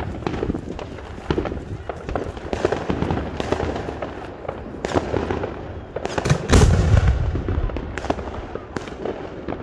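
Fireworks going off: repeated sharp bangs and crackles at varying distances, with a heavy deep boom about six and a half seconds in.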